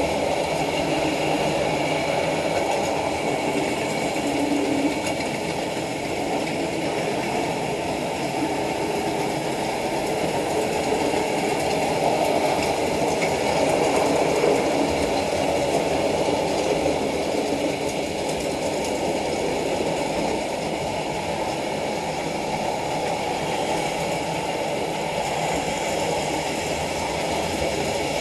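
Hornby Dublo OO-gauge model diesel locomotives running with their trains around the layout: a steady mechanical running noise of small motors and wheels on the track.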